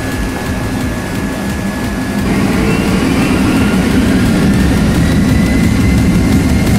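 Boeing 757-300's jet engines heard from inside the cabin, running with a steady low rumble and whine as the plane lines up on the runway. About two seconds in they spool up for takeoff: louder, with a slowly rising whine.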